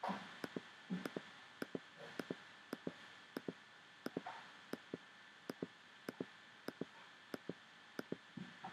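Computer clicking: about a dozen press-and-release pairs of button clicks, each pair quick, at an even pace of roughly one every 0.6 seconds.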